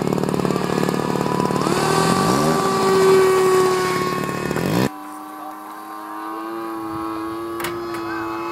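Radio-controlled model jet's motor whining as it takes off, stepping up in pitch about one and a half seconds in. An abrupt cut about five seconds in gives way to a quieter, steady whine as the jet flies.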